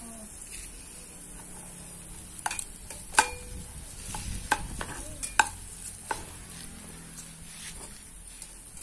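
Metal spatula stirring and knocking in a small frying pan of frying food: several sharp clicks of metal on the pan between about two and a half and six seconds in, over a faint steady sizzle.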